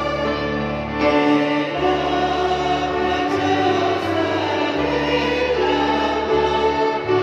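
Violins and a grand piano playing a slow hymn together, the strings holding long notes over the piano's low bass notes.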